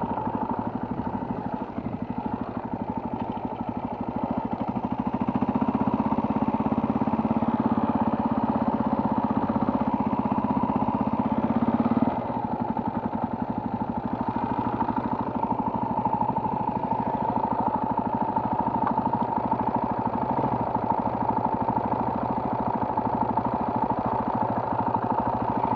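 Moped engine running steadily under way. About twelve seconds in, the deeper part of the drone drops out and it gets a little quieter.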